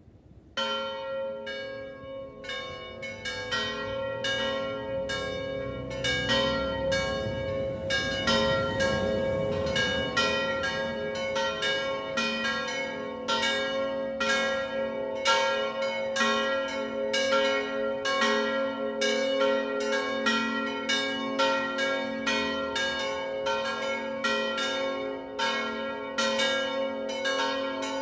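Church bells cast in bronze in 1934, the second, third and fourth of the tower, swinging in a descending peal (distesa discendente). The strokes begin about half a second in, sparse at first, then come thicker and overlap as the bells join. It is the one and only call to the evening pre-festive Mass.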